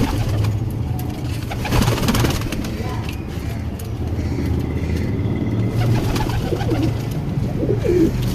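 Caged domestic pigeons cooing, with several low coos near the end, over a steady low hum.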